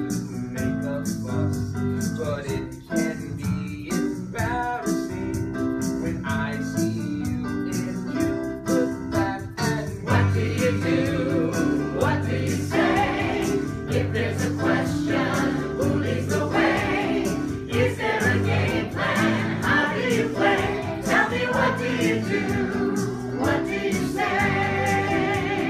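Music: an electric keyboard playing, with voices singing along that grow louder from about ten seconds in.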